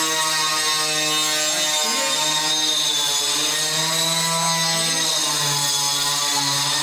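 Electric power tool motor running steadily with a whine, its pitch dipping slightly now and then as if under load.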